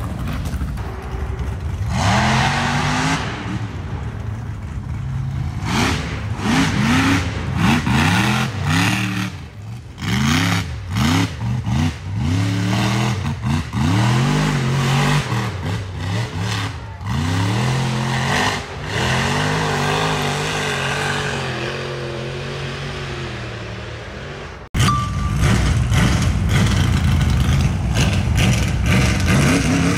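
Rock-racing off-road buggy engine revved hard again and again, its pitch climbing with each stab of throttle and falling back. Near the end the sound drops out for an instant and returns louder.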